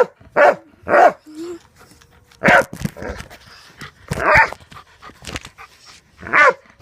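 A dog barking, about six loud single barks spaced irregularly over several seconds.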